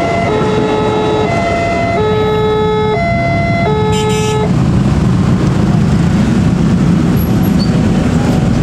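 Railroad crossing warning alarm sounding its electronic two-tone signal, switching between a lower and a higher tone about once a second, which cuts off about four and a half seconds in as the barrier lifts. Motorcycle engines then run and rev as the waiting traffic moves off over the crossing.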